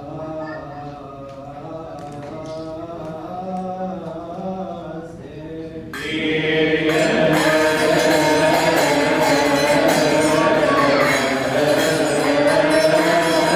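Coptic liturgical chant in church: a single male voice chants a wavering melodic line. About six seconds in, a louder chorus of voices suddenly joins in.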